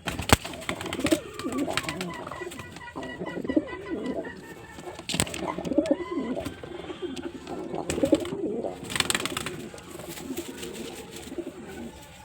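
Male domestic pigeon cooing repeatedly in low, wavering phrases, a courtship performance. A few sharp clicks cut in between the coos.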